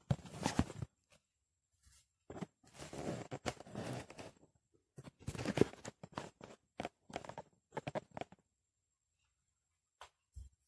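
Bursts of rustling and crunching, then a quick run of small clicks and knocks, as rocks and substrate are handled and set in a glass aquarium tank. The sound dies away for the last couple of seconds apart from one soft knock near the end.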